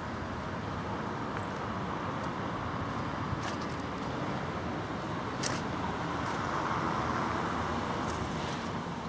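Steady road-traffic noise that swells in the second half as a vehicle passes, with a few faint clicks.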